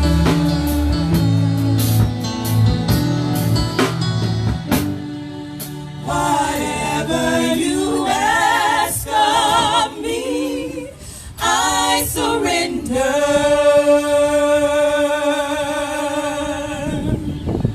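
Gospel singing with band accompaniment: steady instrumental notes and beat at first, then voices singing with vibrato, closing on one long held chord that fades out near the end.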